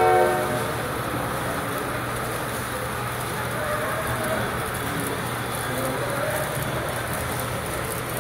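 The last half-second of a model locomotive's sound-decoder horn, a chord of several tones, cuts off; then the steady background noise of a busy model-railroad show hall with faint voices and a low steady hum.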